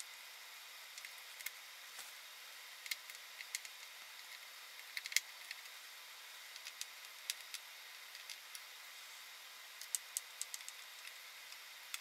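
Faint, irregular light clicks and ticks over a steady hiss, from a screwdriver and the small screws of an Alienware M18x R2 laptop's bottom panel being worked and handled; the sharpest click comes about five seconds in.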